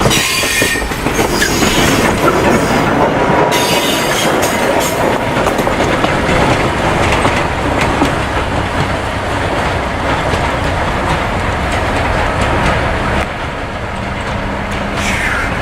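An excursion train's cars rolling past close by, the wheels clicking over rail joints, with brief high wheel squeals near the start and about four seconds in. The sound drops a little after 13 seconds.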